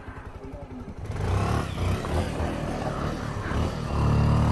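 Motorcycle engine ticking over with an even pulse, then running much louder under throttle from about a second in, with rough rumble and noise.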